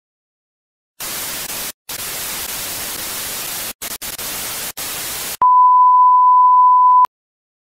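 Hiss of white-noise static, like a detuned television, broken by a few brief dropouts, then a louder, steady pure beep like a test tone lasting about a second and a half that cuts off suddenly.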